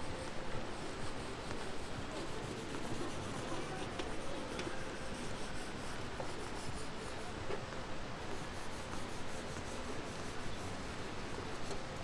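Steady outdoor background noise of an open city square, an even rushing hiss with a couple of faint ticks about four seconds in.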